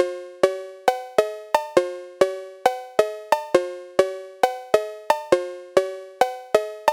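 Music: a melody of single ringing notes, each struck sharply and fading out, at about two to three notes a second.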